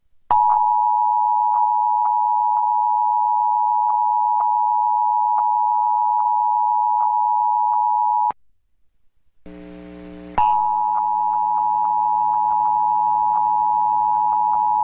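Emergency Alert System two-tone attention signal (853 and 960 Hz together), a loud steady tone marking the start of an EAS monthly test. It sounds for about eight seconds and cuts off sharply. After a brief low hum it starts again about ten seconds in, with the hum continuing underneath.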